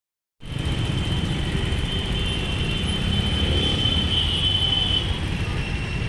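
Outdoor city street noise: a steady low rumble with a thin, steady high-pitched tone over it that fades about five seconds in.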